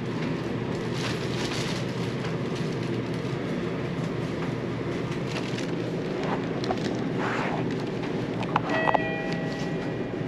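Lift car travelling, with a steady low rumble of the car and hoist. A short electronic beep of a few steady tones sounds near the end.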